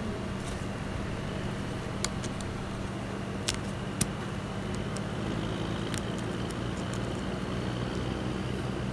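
Steady low background hum with a handful of light clicks, the loudest about three and a half and four seconds in, as a needle is pushed through cap fabric and a plastic strap with a thimble during hand-sewing.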